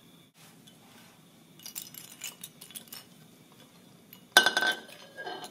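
Glass tube clinking against a hard benchtop about four seconds in, a cluster of sharp knocks with a brief glassy ring, after a few faint light taps of handling.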